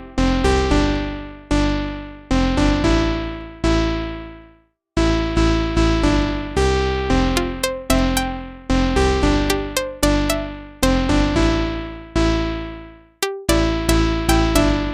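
Instrumental keyboard music: piano-like chords struck one after another, each ringing out and fading, with a brief full stop about five seconds in.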